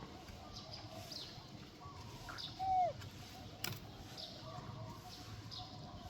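Birds chirping, short high chirps repeating about twice a second. About two and a half seconds in a single short falling call is the loudest sound, and a sharp click follows about a second later.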